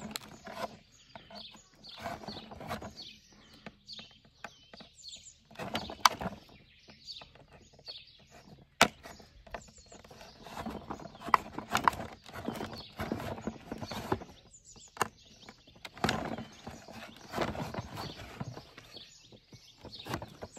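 Knife point scraping and clicking against a hard plastic chlorine-tablet dispenser as holes are pierced in it: irregular scrapes with sharp clicks, the loudest about six and nine seconds in.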